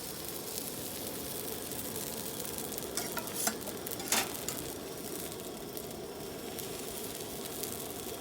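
Food sizzling in a hot pan, a steady crackling fry, with a few sharp clicks of utensils about three to four seconds in.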